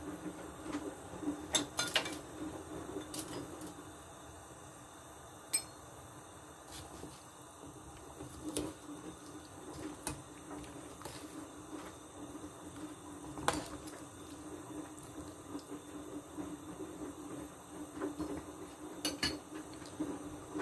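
Metal ladle stirring sliced green papaya into a stainless steel pot of broth, with scattered clinks and knocks against the pot over a low steady hum.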